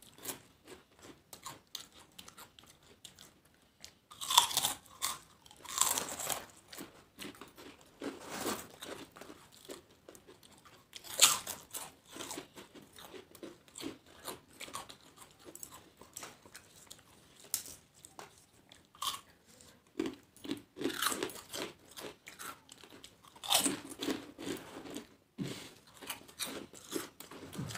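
Two people biting into and chewing crisp papad: irregular sharp crunches and crackles, with louder bites about four to six seconds in, around eleven seconds, and again from about twenty-one to twenty-four seconds.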